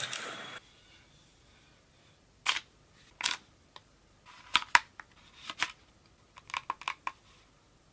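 A string of short, sharp clicks at irregular spacing, several coming in quick succession near the end; a loud burst of noise cuts off just after the start.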